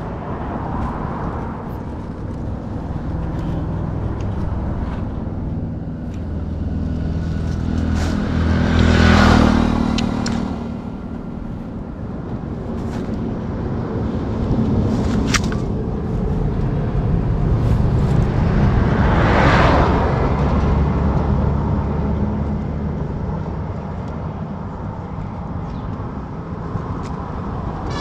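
Highway traffic: motor vehicles passing close by over a steady road roar, the two loudest passes about nine and nineteen seconds in.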